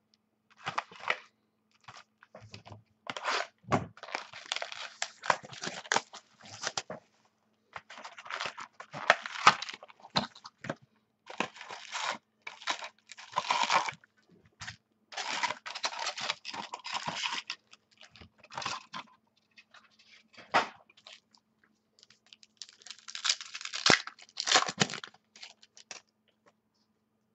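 Plastic wrapping and packaging on a box of football trading cards being torn open and crinkled by hand, in irregular crackling bursts with short pauses between them.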